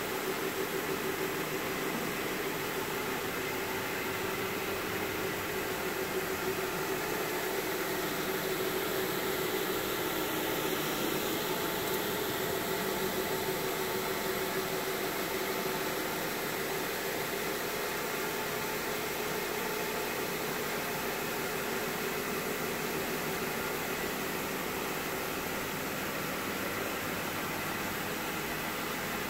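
Electric carpet-scrubbing machine with a rotating brush, running steadily as it agitates cleaning solution into a wet, heavily soiled carpet: a steady motor hum over an even hiss.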